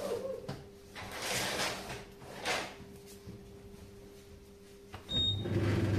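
Electrolux EDV 7552 vented tumble dryer switched on for a test run after its drum-roller repair: a short beep from the control panel about five seconds in, then the motor and fan start with a steady low hum. Before that, a few soft rustling swishes of movement.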